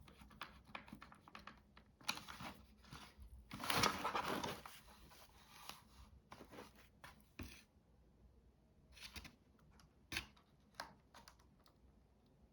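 Hands handling small plastic parts: scattered light clicks and taps, with a louder rustling scrape from about two to five seconds in.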